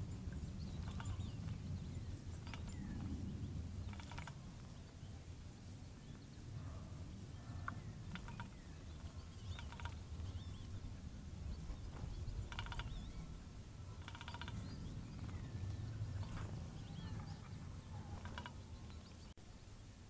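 Several small birds chirping and singing, with short phrases and a few quick buzzy trills, over a steady low rumble.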